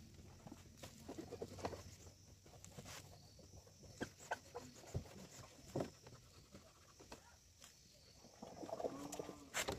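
Faint, scattered taps and knocks of hands working over a scooter's body and wheel while it is being hand-washed, with a few sharper clicks. A brief faint call comes about nine seconds in.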